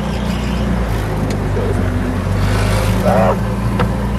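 The golf cart's swapped-in 6.5 horsepower single-cylinder small engine running steadily under load as the cart drives over rough, grassy ground, with a couple of sharp knocks from the cart over the bumps.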